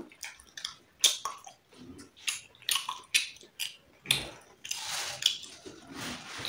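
Close-up eating sounds: chewing and biting, with irregular wet smacks and clicks that grow denser in the second half.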